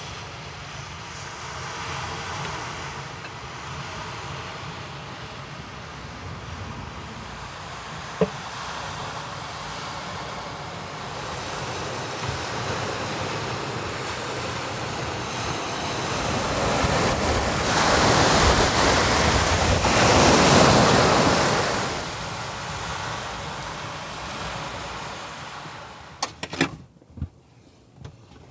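Surf washing on a beach, a steady rush that swells as a wave breaks about two-thirds of the way through, then falls away. Near the end it cuts to a quieter car interior with a few light clicks and taps.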